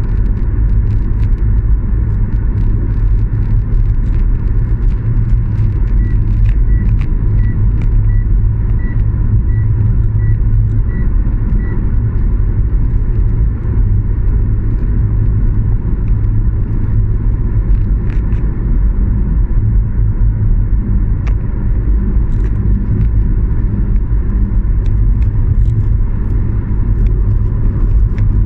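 Dubai Metro Red Line train running with a steady, loud, low rumble. A series of about ten short high beeps, a little over half a second apart, sounds from about six to twelve seconds in.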